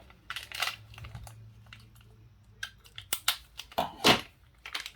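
A small plastic parts bag being torn open and crinkled, with scattered sharp clicks and rustles as the Beyblade disc inside is handled.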